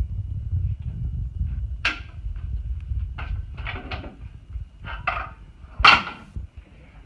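Parts of a hiking wheelchair's frame being handled and fitted: about five separate knocks and clicks, the loudest near the end, over a low rumble that stops shortly before the end.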